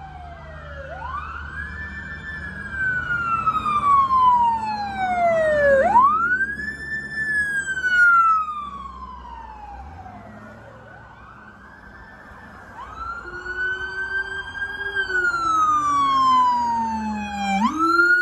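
Police car sirens wailing from a convoy of cruisers, several sirens overlapping, each rising quickly and then falling slowly in cycles of a few seconds. A low engine rumble runs underneath.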